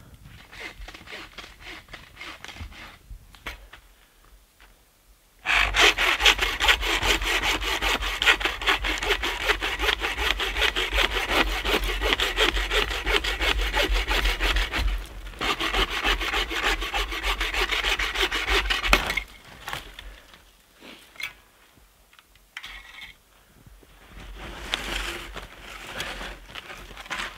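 Hand bow saw cutting through a dead fallen log in rapid, steady back-and-forth strokes. The sawing starts after a few quiet seconds, runs loud for a long stretch, then stops abruptly, leaving quieter scattered rustles and knocks.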